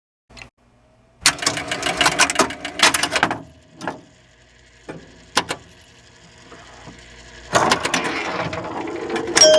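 Rapid mechanical clicking and rattling in two main bursts: a dense run of clicks starting about a second in and lasting about two seconds, a few single clicks, then another rattling stretch near the end.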